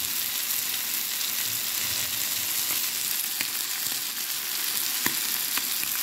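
Salmon, tomatoes, onion and yellow squash sizzling in olive oil in a skillet: a steady frying hiss with a few small pops in the second half.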